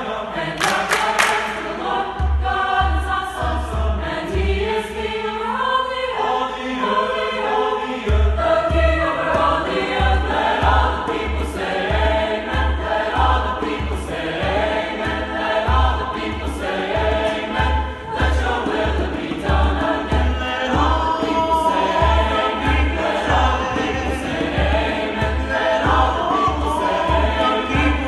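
Mixed choir singing a gospel chorale in several parts, over a steady low beat about twice a second that comes in about two seconds in, drops out for a few seconds and then returns.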